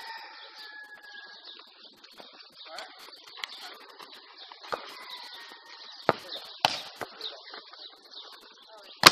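Hands striking a volleyball: sharp slaps in the second half, three in quick succession and a loudest one near the end, as in a serve, pass, set and hit. A steady high chirring of insects runs underneath.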